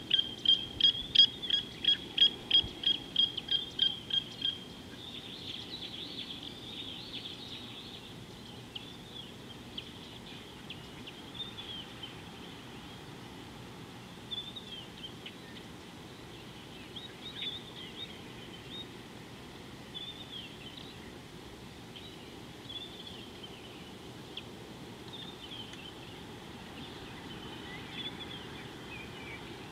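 A bird calling a fast run of loud, evenly repeated high notes, about three a second, which stops about four seconds in. After that, scattered faint bird chirps over steady background noise.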